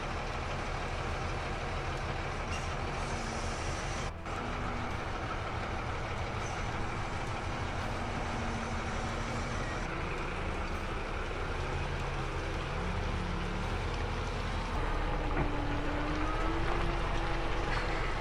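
Heavy truck running steadily: a low engine drone with road noise and a faint shifting hum, briefly dropping about four seconds in.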